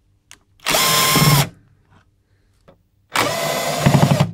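Cordless drill-driver backing out the screws of a steel equipment top cover, in two short runs, the second a little longer; the motor whine holds a steady pitch through each run.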